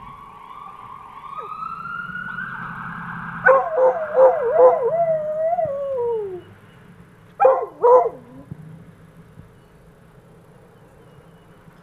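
A distant fire-truck siren wails, slowly rising in pitch. About three seconds in, a coonhound answers with a loud wavering howl that trails downward, then gives two short bays.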